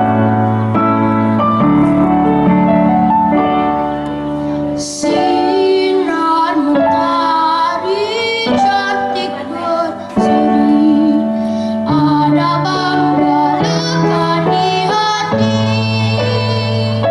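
A young girl singing a solo ballad into a microphone over backing music. The accompaniment plays alone for about the first five seconds before her voice comes in, held notes with vibrato.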